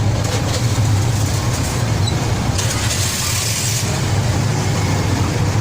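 Engine running steadily with a low, even drone, and a brief hiss about halfway through.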